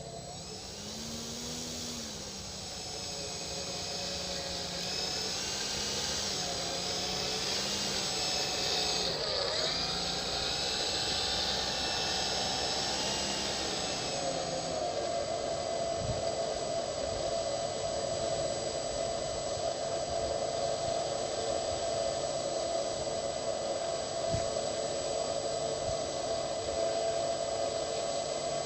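Electric motor and propeller of an Art-Tech Cessna 182 radio-controlled model plane whining, its pitch wandering up and down with a sharp dip about nine seconds in, then holding a steady pitch from about halfway on.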